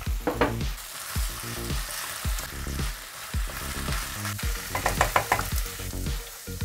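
Diced potatoes, chicken and carrots sizzling in a non-stick frying pan while a wooden spatula stirs and scrapes through them, with a quick run of clicking scrapes about five seconds in.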